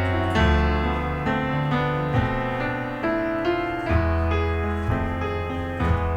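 Instrumental ending of a slow song on piano: sustained chords over a deep bass, with a new chord struck about once a second.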